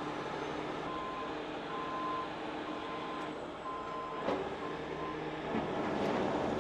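Heavy rotator tow truck running while its hydraulic outrigger is extended, with a warning alarm beeping a little less than once a second. There is a single knock about four seconds in, and a louder rush of noise near the end.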